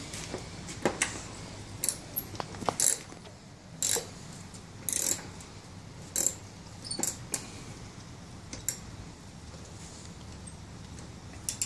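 Sporadic metallic clinks and short scrapes of hand tools and loose parts against a partly dismantled lawn mower engine, about a dozen scattered sharp sounds with quiet gaps between.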